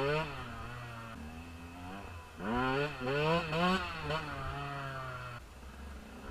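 KTM 125 EXC's two-stroke single-cylinder engine revving in quick rising throttle bursts, held steadier in between, as the throttle is worked to lift the front wheel into a wheelie. About five seconds in, the revs drop off.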